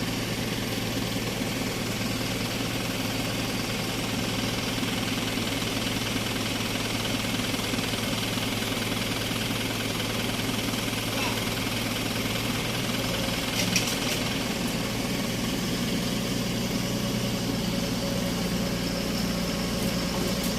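Dump truck engine idling steadily, with a brief knock about two-thirds of the way through.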